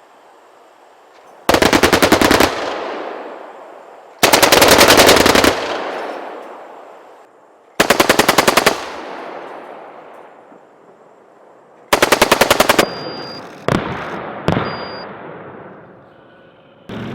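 Automatic weapon fire in four bursts of rapid shots, each about a second long, then two single shots near the end. Each burst echoes and fades slowly afterwards.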